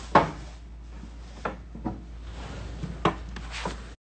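About five short knocks and bumps, the first the loudest, over a steady low hum; the sound cuts off suddenly just before the end.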